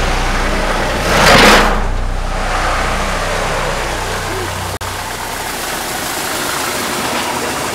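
A Mercedes-Benz saloon's engine running as the car drives out through a gate, a steady low hum with a brief louder rush of noise about a second in.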